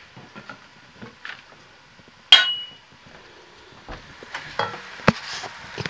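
Metal cookware and utensils clinking. About two seconds in comes one sharp metallic clang that rings briefly. Toward the end, a few knocks of a utensil against the pot over a faint hiss as the carrots in the hot kazan start to fry.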